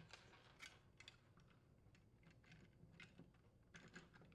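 Faint, scattered clicks and taps of plastic parts being handled, as a refrigerator ice-maker solenoid wire connector is unlatched and disconnected.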